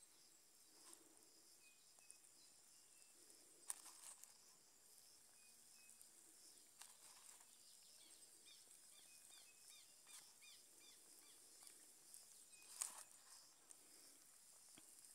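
Near silence: faint outdoor ambience, a steady high hiss with a few faint short chirps, broken by a few soft knocks.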